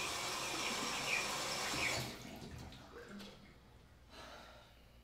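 Water running from a tap into a washbasin as someone splashes his face, stopping about two seconds in.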